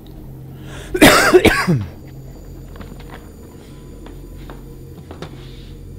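A man's short, loud cough about a second in, over faint steady background hum.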